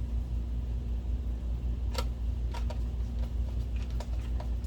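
Light, sharp clicks and taps of screws and a plastic projector back panel being handled and fitted, several in the second half, over a steady low hum.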